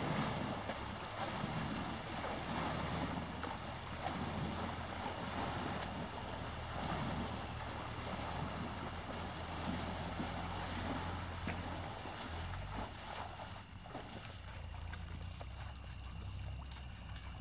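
Asian elephant wading through a shallow river, its legs sloshing and splashing through the water.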